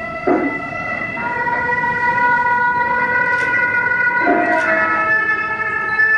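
Traditional Chinese temple ritual music: nasal reed wind instruments playing a slow melody of long held notes that step from pitch to pitch.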